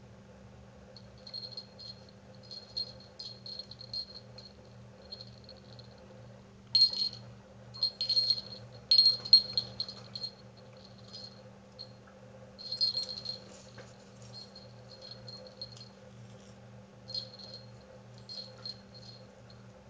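A small jingle bell on the end of a coiled spring tinkling in short, irregular bursts as a kitten bats and tugs at it. It is loudest between about seven and ten seconds in, with another burst around thirteen seconds.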